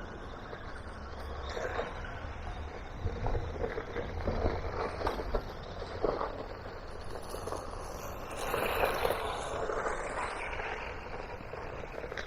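Haiboxing Protector electric RC car driving around over rough outdoor ground: a continuous running noise of motor and tyres scrabbling on the dirt, with irregular crackles and a louder surge about eight to nine seconds in.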